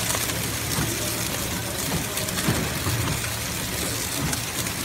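PFM Hurricane horizontal flow-wrapping machine running, a steady mechanical whir over a constant low hum, with faint scattered clicks from its moving parts.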